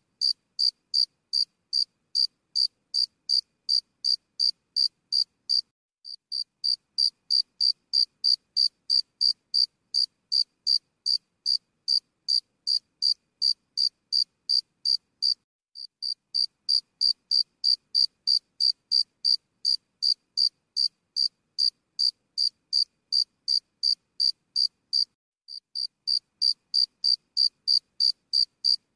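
Cricket-like insect chirping in a steady rhythm, about three short high chirps a second. It breaks off briefly and starts again about six, sixteen and twenty-six seconds in.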